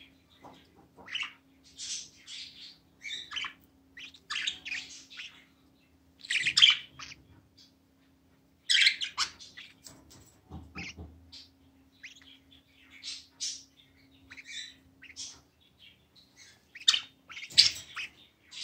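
Budgerigars chirping and squawking in short, irregular bursts, the loudest calls coming about six and nine seconds in.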